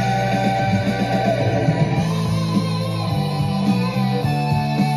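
Music with guitar and a steady beat.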